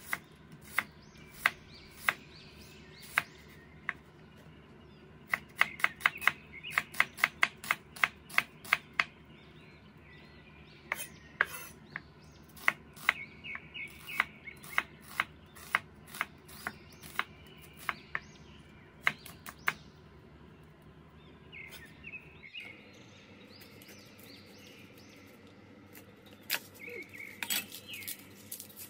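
Steel cleaver slicing a red onion on a wooden cutting board: sharp knocks of the blade striking the board, sometimes in quick runs of about four a second, with pauses between. Near the end, the papery skin of a garlic head crackles as it is peeled, and faint bird chirps sound in the background.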